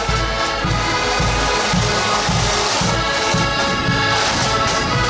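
Marching accordion band playing a tune: massed accordions sounding sustained chords over a steady bass drum beat of a little under two strokes a second, with drums rattling on top.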